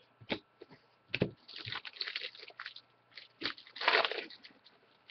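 Foil trading-card pack wrapper crinkling and rustling as it is handled and opened, with a few sharp clicks and the loudest crinkle about four seconds in.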